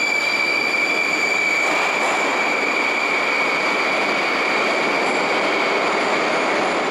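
81-760/761 "Oka" metro train pulling away along the platform: steady rumble of wheels on rails with a high, steady whine over it.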